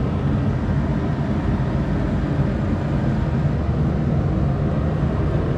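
Master 80,000 BTU radiant forced-air kerosene heater running just after lighting: its blower and burner give a steady low rushing noise with an even hum.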